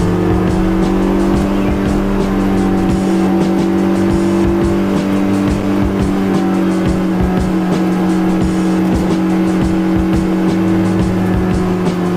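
Honda S2000's four-cylinder engine running at a steady speed while the car is driven, holding one pitch, with music playing alongside.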